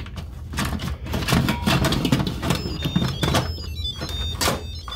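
Lid of an Instant Pot electric pressure cooker being set on and twisted round to lock: a series of scrapes and clicks of the lid against the pot rim. From about halfway through, a short electronic melody of high beeping notes plays over it.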